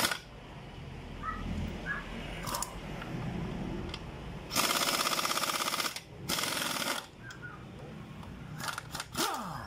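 Impact wrench hammering on a scooter's rear axle nut to loosen it. There are two bursts of rapid rattling: one of about a second and a half, then a shorter one, with a brief whirr near the end.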